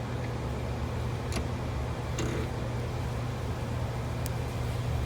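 Steady low mechanical hum in the background, with a few faint clicks from handling small parts.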